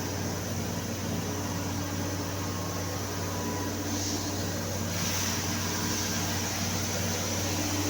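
Machinery running with a steady low hum and hiss. The hiss gets louder about five seconds in.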